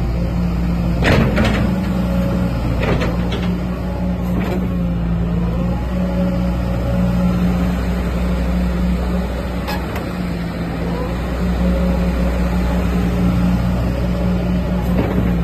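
Caterpillar 315D tracked excavator's diesel engine running steadily, with a whine that rises and falls under it. Several sharp knocks come in the first few seconds and again about ten seconds in.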